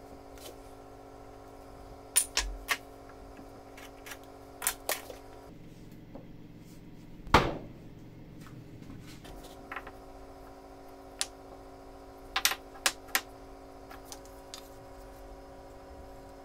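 Sharp wooden knocks and clacks of wooden plane bodies and blocks being handled and set down on a wooden workbench, in small groups of two to four. One heavier knock lands about seven seconds in.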